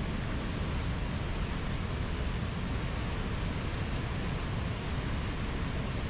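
Fast whitewater river rushing steadily over rocks, an even roar with no breaks.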